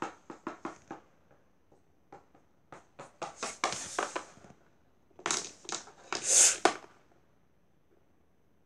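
A hand handling small plastic toys on a wooden floor: short clicks and rustles in three bursts, the loudest rustle a little past the middle.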